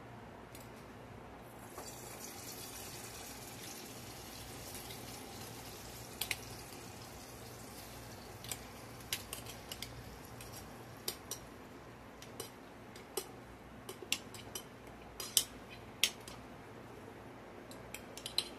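Homemade sauerkraut sizzling as it is tipped out of a glass jar into a preheated skillet. The sizzle starts about a second and a half in and slowly dies down. From the middle on, a utensil clinks and taps sharply against the jar and pan many times, over a large pot boiling steadily.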